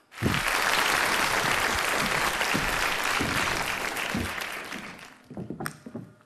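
Studio audience applauding, starting suddenly and dying away about five seconds in.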